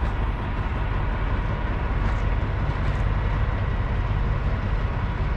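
Steady low rumble of an idling diesel truck engine.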